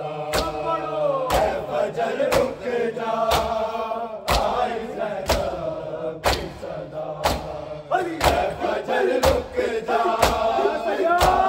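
Men chanting a mourning noha together while beating their chests in unison (matam), a sharp slap about once a second under the chant.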